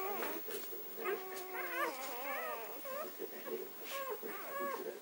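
A litter of newborn puppies whimpering and squeaking, many short high calls overlapping, each rising and falling in pitch.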